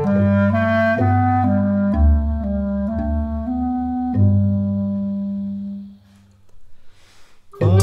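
Clarinet, accordion and bass xylophone playing a slow instrumental passage of a lullaby, with held notes over a low bass line. The music dies away about six seconds in, and after a short pause the ensemble comes back in loudly just before the end.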